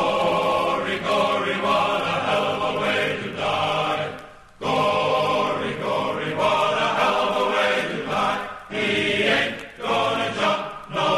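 A choir singing a song in long phrases, breaking off briefly about four and a half seconds in and again near nine seconds.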